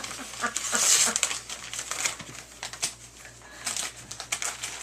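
Paper crinkling and rustling in quick irregular bursts as a Christmas gift is unwrapped, busiest about a second in.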